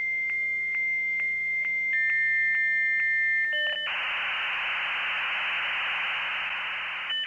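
Dial-up modem handshake: a steady high answer tone broken by clicks about every half second, joined by a second slightly lower tone. Then comes a brief pair of tones, then a few seconds of dense hissing noise, the loudest part.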